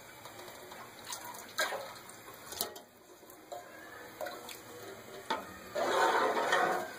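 Buttermilk-and-gram-flour batter pouring from a steel vessel into a pot of fried masala, a soft liquid pour with a few light clicks of metal. About six seconds in a louder burst of liquid noise rises for under a second as the batter is stirred in.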